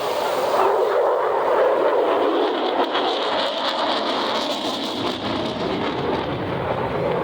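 F-35 Lightning fighter jet passing, a loud, steady jet rush with a higher whine for a couple of seconds in the middle.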